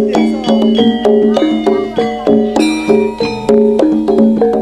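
Amplified jaranan gamelan music: a quick melody of short ringing metallophone notes over a steady held low note, with sharp drum strokes cutting in several times a second.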